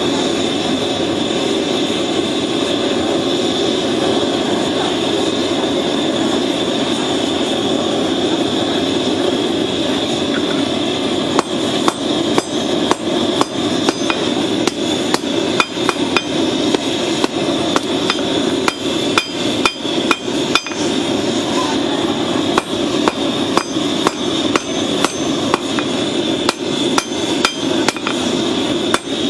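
Hand hammer striking a red-hot steel blade, forged from a horseshoe rasp, on an anvil: ringing blows about two a second, starting about eleven seconds in. Under them is the steady rushing noise of the forge running.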